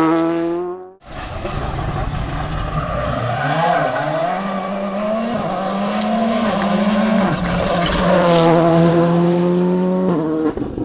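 Rally car engine at full throttle, its pitch climbing and held at high revs, with tyres squealing. The sound cuts out briefly about a second in, then the engine comes back.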